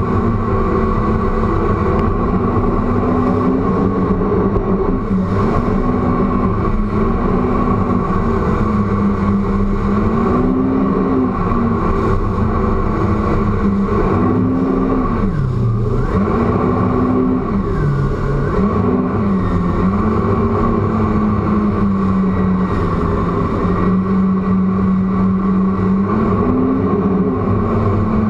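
Yamaha WaveRunner personal watercraft running at speed, the engine's pitch rising and falling with the throttle and dropping briefly twice in the middle.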